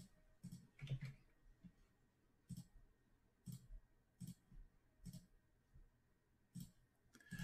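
Faint computer mouse and keyboard clicks: about a dozen short, irregularly spaced clicks as a list is copied and pasted into a spreadsheet.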